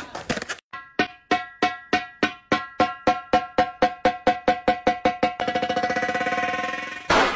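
Percussive music or sound effect: one ringing struck note repeated over and over. The strikes speed up from about three a second into a fast roll, and a loud, noisy crash comes near the end.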